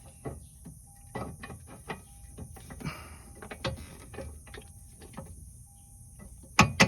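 Scattered light metallic clicks and taps as a car's stabilizer link is handled and slid into its mount, with two sharper knocks near the end.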